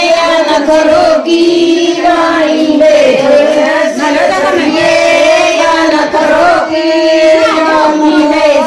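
Women singing with long held notes.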